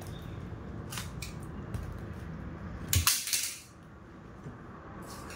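Parcel packaging being handled and torn open: a couple of light clicks about a second in, then a short loud rip of plastic or tape about three seconds in.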